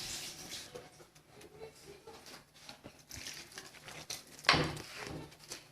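Hands kneading soft pizza dough, a run of soft squishing and patting sounds, with one louder knock about four and a half seconds in.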